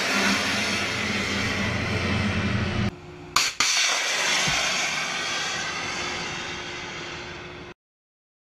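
Small missile launching from a ship's deck launcher. There is a sharp crack about three and a half seconds in, then the rocket motor's rushing noise fades as the missile flies away. The sound cuts off suddenly near the end.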